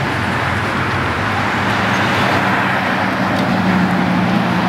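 Road traffic: a motor vehicle's engine hum and tyre noise running steadily close by, the engine hum growing a little stronger in the second half.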